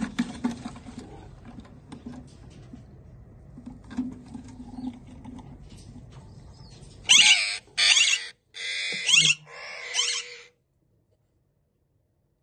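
An Alexandrine parakeet in its wooden nest box gives four loud, harsh screeching calls in quick succession about seven seconds in, after a faint low drone in the first half.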